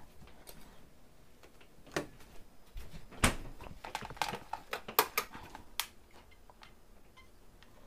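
Cling-film-wrapped breads being picked up and moved about on a plate: a string of irregular sharp clicks and light knocks, the loudest about three and five seconds in.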